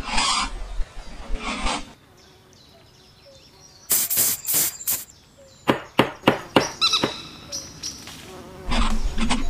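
Hand tools working on the metal fittings of an old gun stock: short scraping strokes, a quiet pause, then a run of sharp metallic clicks and taps, a few of them ringing briefly, and more scraping near the end.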